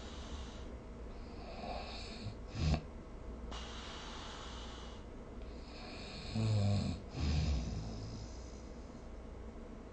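Snoring: hissy breaths with a short snort a little under three seconds in, then two loud, low snores back to back between about six and eight seconds in.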